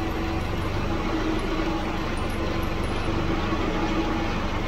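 Subaru Impreza 2.5 L flat-four engine and drivetrain running in third gear at idle with the wheels off the ground, a steady even mechanical noise with a faint steady tone. The owner puts the noise down to the transmission rear bearing, where the driveshaft enters the transmission.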